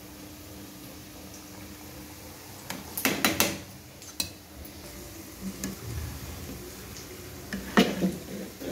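A metal spoon clinking and scraping against a steel bowl and the pot as soaked basmati rice is spooned into boiling spiced water. A cluster of clinks comes about three seconds in and a single sharp knock near the end, over a faint steady hum.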